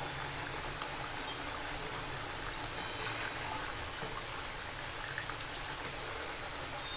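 Kothimbir vadi slices deep-frying in a kadhai of hot oil: a steady sizzle and bubbling. Two short clicks stand out, about a second in and nearly three seconds in.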